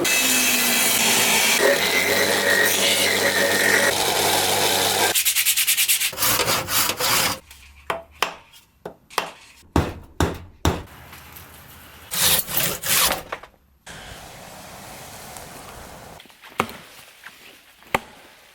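Wood being worked with tools: about five seconds of steady grinding, then a couple of seconds of fast, even rasping strokes, then a series of separate sharp knocks and scraping strokes with short pauses between them.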